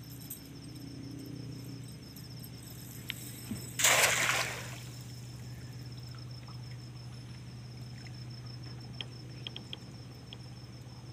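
A cast net landing on river water about four seconds in: one short hissing splash, under a second long. A cricket chirps steadily throughout over a low steady hum, with a few faint ticks later on.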